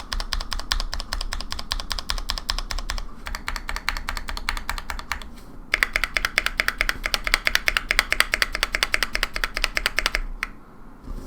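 Fast typing on a Tofu65 custom keyboard with lubed Zealios V2 62g tactile switches on a brass plate and GMK keycaps: a dense run of keystrokes that eases off briefly about five seconds in. A faster, louder burst follows and stops about a second before the end.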